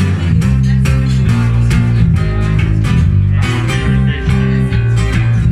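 Live acoustic guitar and electric bass guitar playing an instrumental passage with no singing: the bass plays changing low notes under rhythmic guitar strumming.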